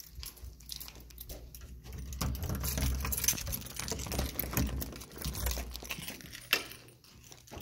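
A brass lever door handle being worked and the door opened: metallic rattling and clicking of the handle and latch, with a sharp click near the end.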